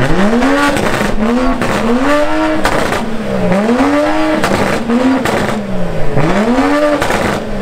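Turbocharged BMW F30 3 Series engine revved hard and repeatedly through a full straight-piped turbo-back exhaust, about seven or eight quick blips, each rising in pitch and falling back.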